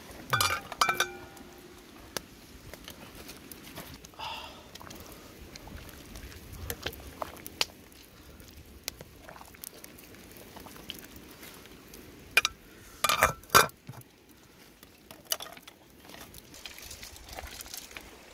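Clinks and clanks of a metal cooking pot and its lid. A ringing clatter comes as the lid is lifted off at the start, then scattered knocks as the pot is stirred with a wooden spoon. The loudest cluster of clanks comes about two-thirds of the way in.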